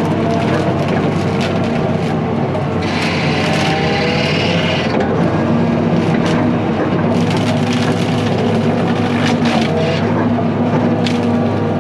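Diesel machine engine running steadily under load while a brush mower cuts through brush and small trees, with repeated cracking and splintering of wood throughout.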